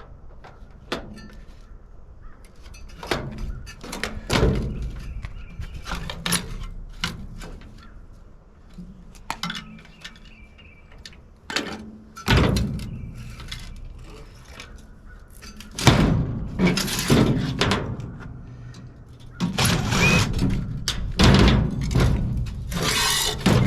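Irregular metal knocks and clanks from scrap parts of a golf cart charger being pried and pulled apart by hand, with longer scraping stretches in the second half.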